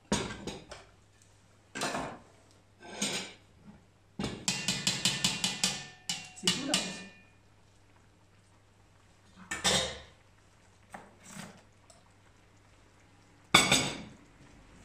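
Tongs and a ladle scraping and clinking against a stainless steel wok and ceramic plates while stir-fry is served. A quick run of rapid ticks comes about four seconds in, and a loud knock near the end.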